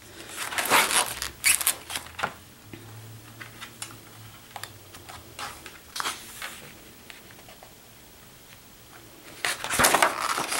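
Sketchbook paper pages being handled and turned: rustling and flapping of the sheets about half a second in and again, louder, near the end as a page is flipped over. A few light ticks come in between.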